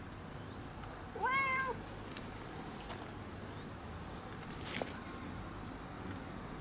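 Domestic tabby-and-white cat giving a single short meow, rising then falling in pitch, about a second in. Later its small collar bell jingles faintly for a moment as it moves.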